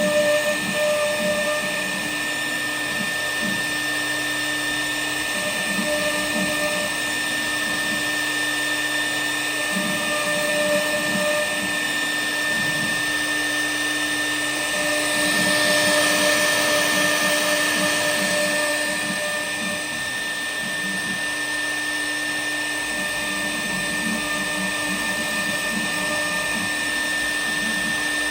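K1-1325 CNC router running, its spindle giving a steady whine over a rushing hiss that grows louder for a few seconds about halfway through.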